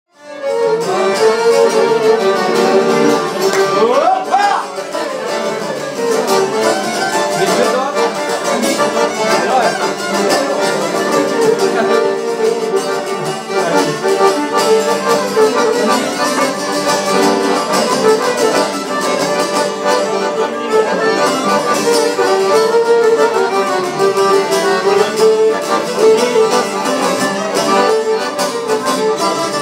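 Albanian folk instrumental: a violin playing the melody over strummed long-necked lutes, starting abruptly, with a rising violin slide about four seconds in.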